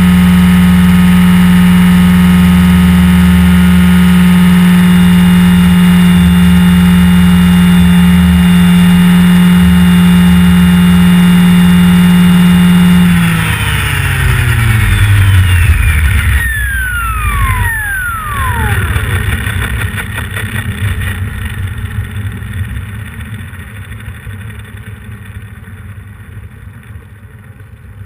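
Align T-Rex 550 electric RC helicopter heard through its onboard camera: motor and rotor run at a steady pitch, then about 13 seconds in the power is cut and the motor whine and rotor hum fall in pitch as it spools down, fading away.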